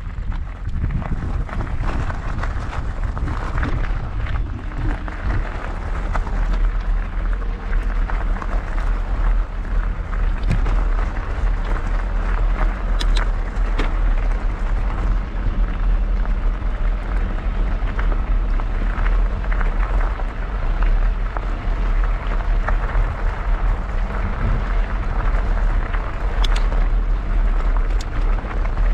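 Mountain bike tyres crunching steadily over loose gravel, with wind buffeting the microphone as a heavy low rumble, and a few sharp clicks of stones.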